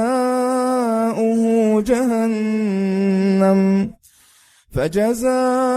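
A man's unaccompanied Quran recitation, his voice held in long melodic notes with small ornamental turns. About four seconds in it breaks off for a brief breath, then the chant resumes.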